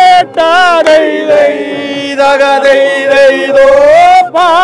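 Men singing a vallappattu (vanchipattu), the traditional Kerala boat song, without instruments, with a long drawn-out wavering note in the middle.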